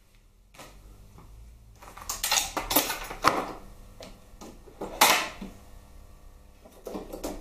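Metal hand tools clinking and clattering as one is picked out, a run of sharp knocks about two to three seconds in and a single loud knock around five seconds.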